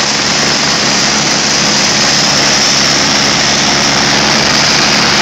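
Helicopter running on the ground with its main rotor turning: a loud, steady rush of turbine and rotor noise with a low hum under it, and wind from the rotor downwash.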